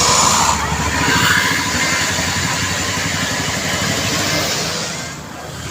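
A bus passing close by: its engine running with a pulsing low rumble under a loud rush of tyre and road noise, which fades near the end.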